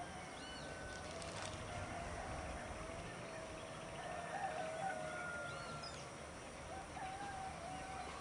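Faint outdoor ambience from a hilltop: a few short, high bird chirps over a distant wavering tone that carries on steadily, with a low rumble of wind or far-off noise underneath.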